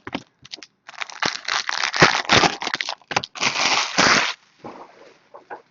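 Foil trading-card pack wrappers crinkling and being torn open, a run of sharp crackles with a longer tearing rustle about three and a half seconds in.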